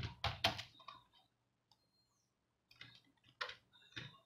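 Computer keyboard keys being pressed: a few separate clicks at the start, a pause, then another short run of key clicks about three to four seconds in.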